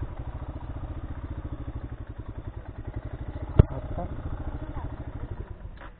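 Royal Enfield Himalayan's single-cylinder engine idling with a steady, even pulsing beat. One sharp knock comes a little past halfway, and the engine sound fades near the end.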